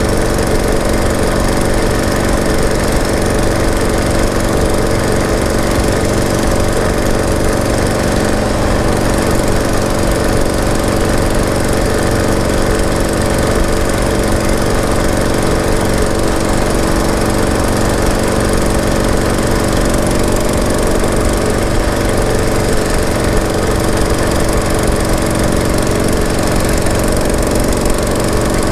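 Harley-Davidson Shovelhead V-twin motorcycle engine idling steadily, its firing pulses even, with no revving.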